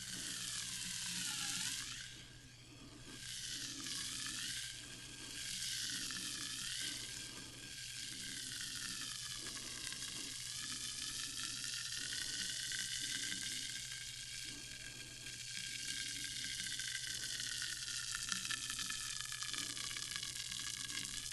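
Sparkling water fizzing: a dense, continuous crackle of bursting bubbles, with a hollow tone that wavers slowly up and down.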